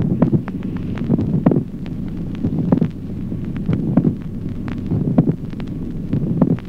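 Auscultated heart sounds with a late systolic click: a dull second heart sound preceded closely by a loud, resonant extra sound. The beats repeat about every 1.2 seconds over a steady low hum.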